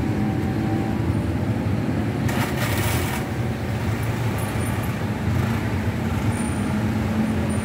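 Steady low rumble of idling motor scooters and nearby traffic, with a brief hiss about two and a half seconds in.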